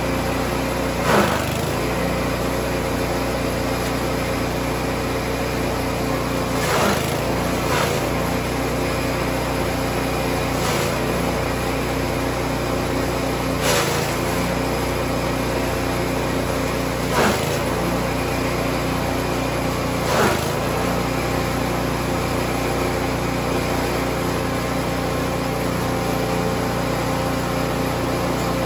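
Grass chopper (chaff cutter) driven by a small engine, running steadily while chopping fresh grass and cassava leaves. About seven times, each time a bundle is pushed in, the engine note sags briefly under the load and picks up again, with a short louder burst of chopping.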